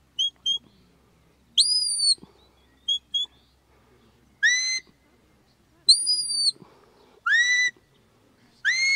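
Shepherd's whistle commands to a working sheepdog: a run of sharp, high whistles. Two quick double pips, two longer notes that rise and then fall, and three short notes that swoop upward, with short gaps between them.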